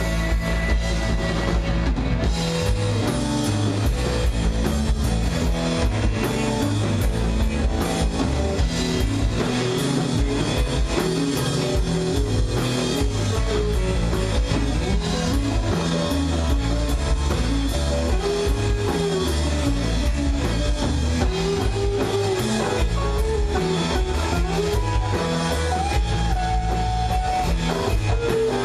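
Live rock band playing: electric guitars over a drum kit, loud and continuous.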